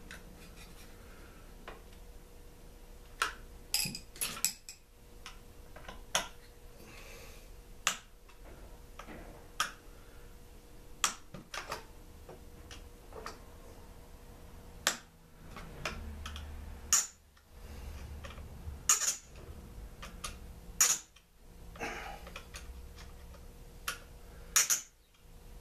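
Hand tools clicking and clinking against metal, a hex key and wrenches knocking at irregular intervals, as a rusted-in bolt holding a Mantis tiller's gas tank is worked at. The clicks are sharp and short.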